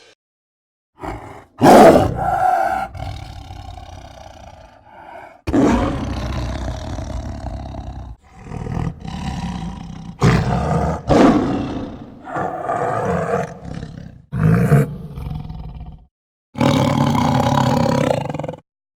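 A series of tiger roars and growls, one clip after another with short silences between them: a sudden loud roar about two seconds in, then longer rumbling calls, a run of short growls, and a final steady roar near the end.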